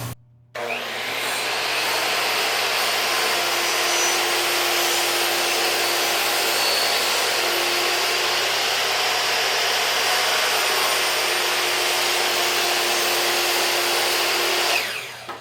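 Electric power saw running steadily while cutting a groove into a wooden piece, then switched off and winding down near the end.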